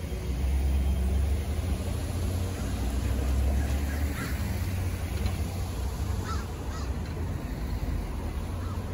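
Road traffic moving off across a railroad crossing as the gates lift: cars and pickup trucks pass close by with engine and tyre noise, a low rumble loudest in the first few seconds. A few short, higher sounds come about four and six seconds in.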